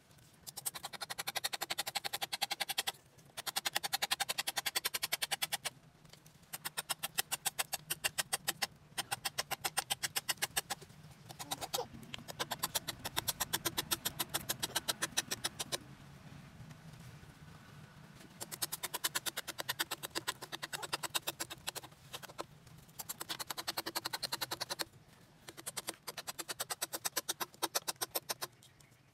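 Knife blade scraping and shaving a wooden slingshot fork in quick, even strokes, several a second, in runs of a few seconds with short pauses between.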